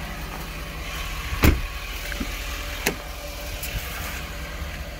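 Pickup truck's engine idling, with a loud clunk about a second and a half in and a lighter click near three seconds, as a door and its power running board are worked.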